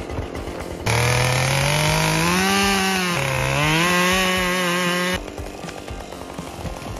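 Chainsaw idling with a rapid rattle, revved up about a second in, its pitch rising and dipping under throttle for about four seconds, then dropping back to idle.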